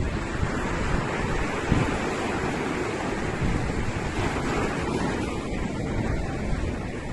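Strong wind buffeting the microphone with a low rumble, over the steady wash of big ocean waves.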